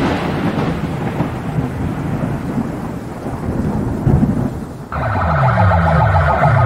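A long, noisy boom sound effect for a logo intro, fading slowly. About five seconds in it cuts suddenly to loud DJ sound-box music with repeated falling bass sweeps, played on stacked speaker rigs at a box competition.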